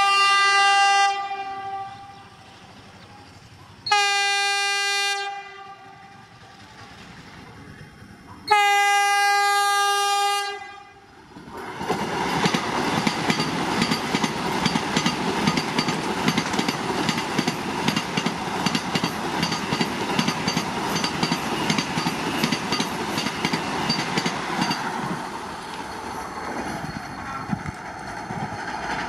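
Vande Bharat Express electric trainset sounding its horn in three blasts, the third the longest. It then passes at speed: a loud rush of wheels and air with rapid, regular clatter over the rail joints, easing near the end.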